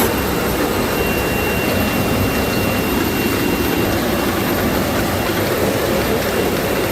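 Soft-drink bottling line running: an even, continuous machine noise with a faint steady high whine.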